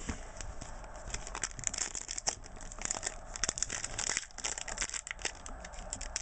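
Trading card packaging being torn open and crinkled by hand: irregular crackling and crinkling with many small sharp snaps.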